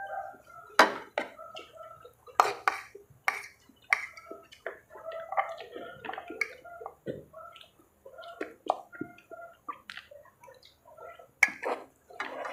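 Close-up eating sounds from two people eating spaghetti and fried chicken: wet chewing and lip smacks with irregular sharp mouth clicks, a few louder ones standing out.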